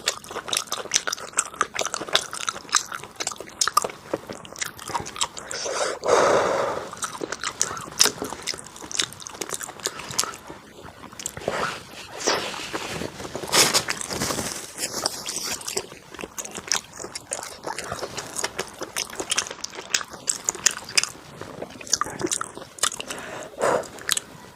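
Close-up eating sounds: crunchy bites and chewing, with many sharp crackles throughout.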